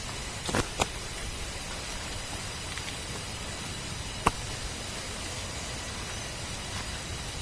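Steady rushing of water, heard as an even hiss, with a few sharp clicks: two in quick succession just after half a second in and a louder one just past four seconds.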